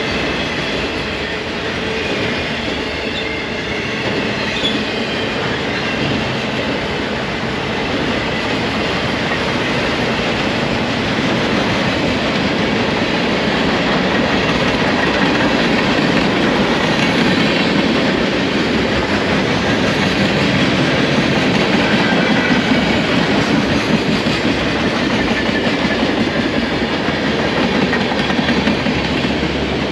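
Freight cars rolling past on steel rails: a steady, loud rumble of wheels on track, with a faint high wheel squeal coming and going.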